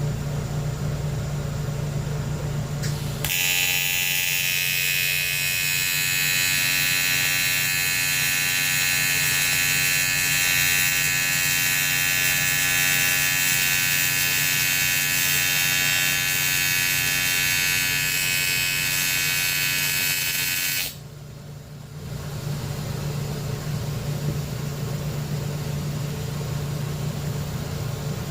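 Welding arc running steadily, a loud hiss with a buzzing whine, from about three seconds in until it stops about two-thirds of the way through. A steady machine hum is there before the arc strikes and again after it stops.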